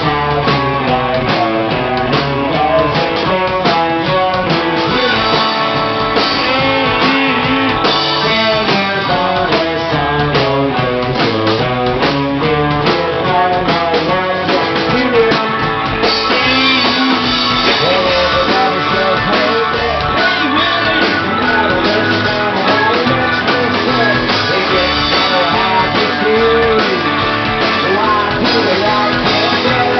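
Live rock band playing: electric guitars riffing over a drum kit, with a man singing in the second half.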